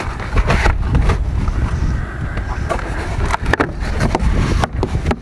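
Corrugated cardboard packing inserts being pulled and shifted out of a box by hand: repeated scraping, rustling and crackling over a steady low rumble.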